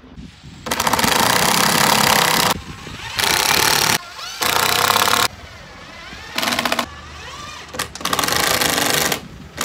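Cordless power driver driving screws into a carved wooden nameboard to fasten it to a boat's transom, in five short runs, the first the longest.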